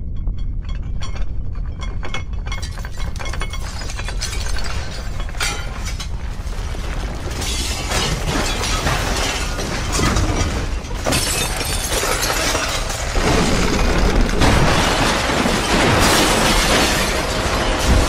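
Loud destruction sound effect: a deep, steady rumble overlaid with crackling and shattering noise that thickens and grows louder about two-thirds of the way through.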